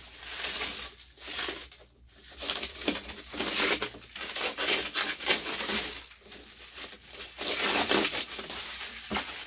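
Clear plastic cling wrap crinkling and tearing as it is pulled off an RC truck body by hand, in irregular bursts with brief lulls about two and six seconds in.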